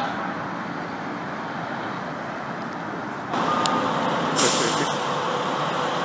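Street traffic noise, then, about three seconds in, a fire truck running close by, with a short hiss of air brakes about a second later.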